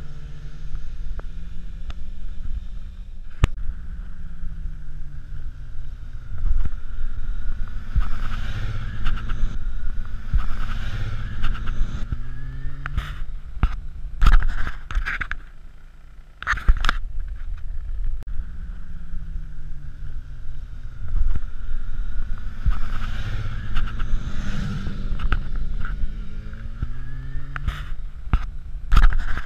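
Sport motorcycle engines passing at speed on a winding road, the engine note rising and falling in pitch as the bikes approach, go by and pull away through the bends, several times. Several sharp cracks stand out, mostly in the middle and near the end.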